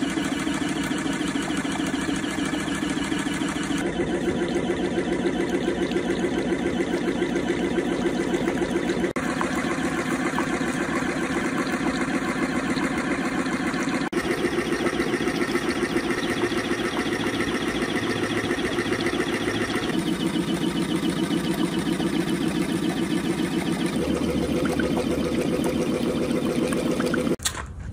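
Gold shaker table running: its drive mechanism and vibrating deck make a steady, fast mechanical rattle, with water washing over the deck. The sound cuts off near the end.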